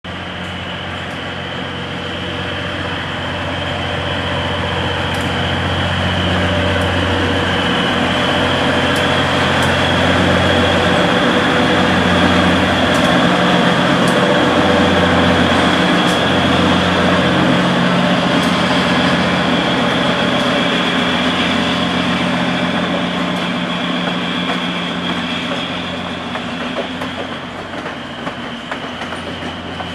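White Pass diesel locomotive hauling vintage passenger coaches past at close range. The engine drone and rolling rumble build to their loudest around the middle, as the locomotive passes, then ease off as the coaches roll by, with a steady high whine and a few scattered clicks from the wheels and rails.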